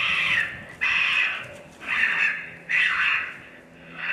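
Raccoon call giving harsh, squalling cries of about half a second each, roughly once a second, imitating a raccoon in a fight or in distress to lure raccoons in.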